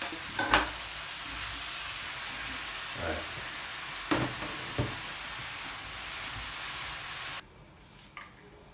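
Zucchini, peppers and tomatoes sizzling as they fry in a hot pan, with a few knocks as they are stirred and more chopped vegetables go in. The sizzle cuts off abruptly near the end.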